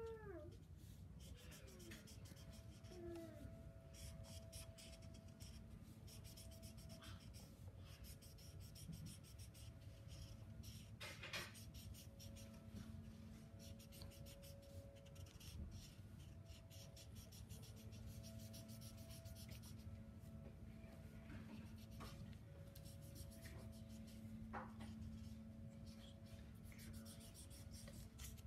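Felt-tip marker scratching quickly back and forth on paper as the sky is coloured in with the broad side of its tip: faint, rapid rubbing strokes with short pauses, over a faint steady hum.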